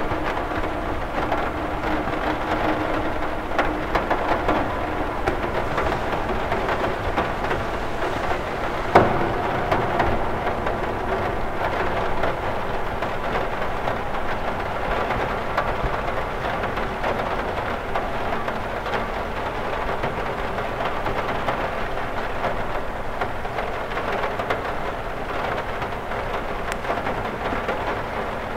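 Steady rain falling on a cathedral window, a dense even hiss of countless small drop hits on the glass, with one sharper hit about nine seconds in.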